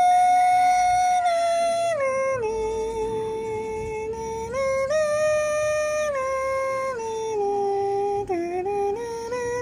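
Background music: a single melody line, held on long notes and sliding smoothly from one pitch to the next.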